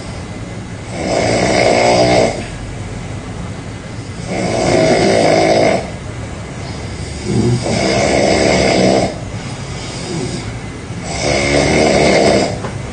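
A person snoring loudly: four long snores at an even pace of about one every three and a half seconds, with quieter stretches between.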